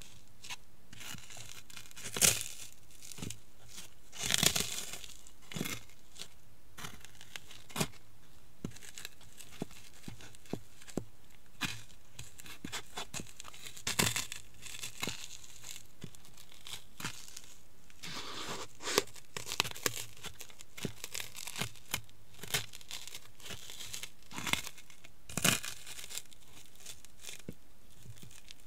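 Cheetos being crushed under high-heeled sandals on a hard floor: irregular crackling and crunching, with a few louder crunches now and then.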